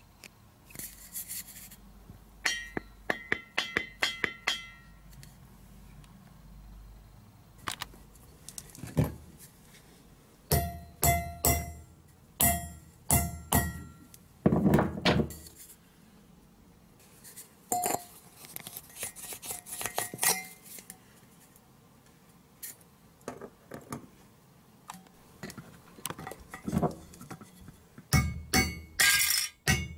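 A screw being hammered through an empty thin-walled metal butane canister to punch a hole in it: several bursts of quick metallic strikes, the can ringing after each blow.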